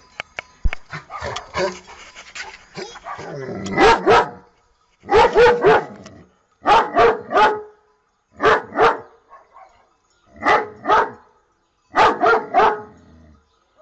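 German Shepherd barking in six quick bursts of two or three barks each, a second or two apart, starting about four seconds in after a few seconds of scattered clicks.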